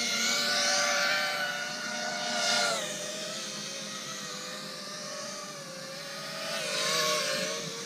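FPV freestyle quadcopter's motors and propellers whining, the pitch shifting with throttle. The sound swells with a swoosh about two and a half seconds in, where the pitch drops, and swells again about seven seconds in.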